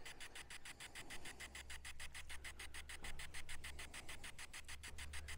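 Ghost-hunting 'spirit box' app sweeping, a faint, rapid, even chopping of about nine ticks a second. A low steady rumble runs beneath it from about a second in.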